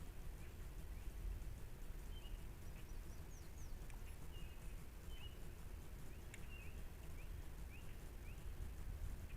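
Birds chirping with short, quick calls scattered throughout, over a steady low rumble, with a couple of sharp clicks in the middle.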